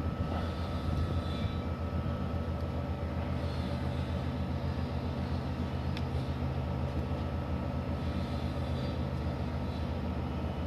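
Steady low machine hum with a faint constant high tone above it, unchanging throughout.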